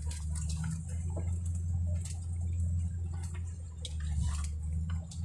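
Ford F-250 pickup's engine running with a steady low drone, heard from inside the cab while it creeps through brush. Scattered light clicks and ticks sound over it.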